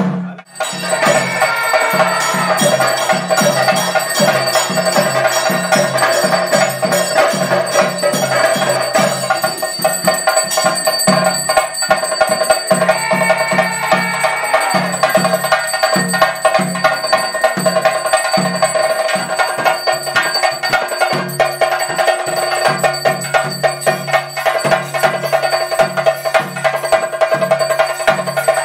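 Chenda drums beating a fast, dense rhythm for a Theyyam dance, with a steady metallic ringing over the drumming.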